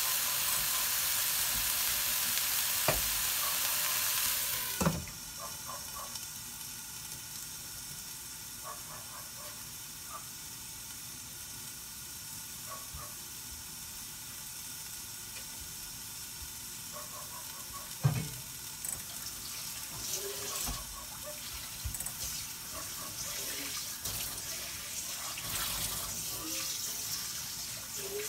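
Mung bean sprouts sizzling in a hot, oil-free pan. About five seconds in there is a clank, and the sizzle drops to a quieter hiss with small crackles as the sprouts steam under a glass lid; another sharp clank comes later.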